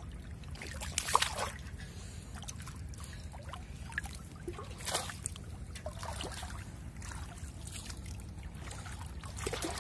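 Shallow water splashing and dripping in short, irregular bursts as a large fish is grabbed by hand and lifted out of knee-deep flood water, the loudest splash about a second in. A steady low rumble runs underneath.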